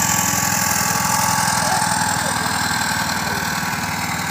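Small engine of a railway inspection motor trolley running steadily as the trolley passes and moves away, a little quieter near the end.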